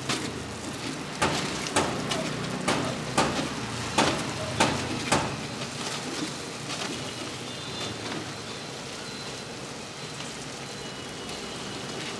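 Fritters deep-frying in a large kadai of hot oil: a steady sizzle, with a run of about eight sharp crackles in the first five seconds, then only the sizzle.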